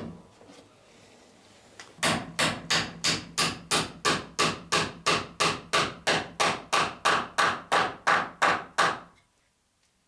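Hammer driving a copper boat nail through a clinker plank into the wooden transom: a run of about twenty even blows, roughly three a second, that stops abruptly. A single sharp knock comes just before the blows begin.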